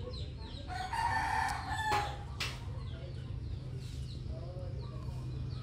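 A rooster crowing once, about a second in, for over a second, followed by a sharp click. Small birds chirp throughout, over a steady low hum.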